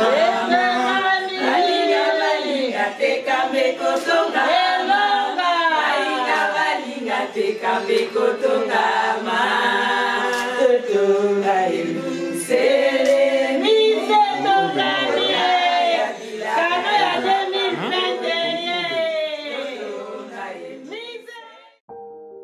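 A group of women singing together a cappella, several voices at once, fading out near the end.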